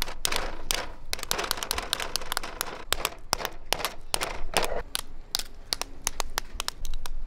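Two screwdrivers chipping and scraping at a thick block of ice, making a rapid, irregular run of sharp taps and clicks. The ice is really thick, and the screwdrivers are making little headway.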